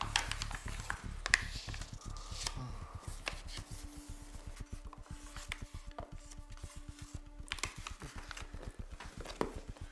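Rustling and soft handling noises of paper pages and cloth as an old journal is leafed through, a run of small scattered clicks and scrapes.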